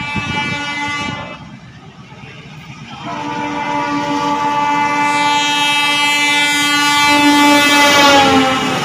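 WDM3D diesel locomotive horn approaching. A blast ends about a second in; from about three seconds a long held blast grows louder and drops in pitch near the end as the locomotive comes alongside. Under it is the rising rumble of the engine and wheels.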